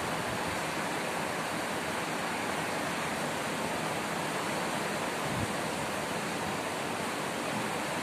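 Steady, even rushing hiss with no speech, and one faint low bump about five seconds in.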